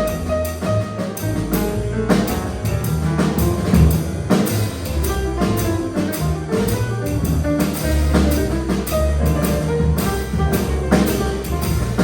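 Jazz band playing at a sound check, with drums keeping a steady beat under sustained instrument notes.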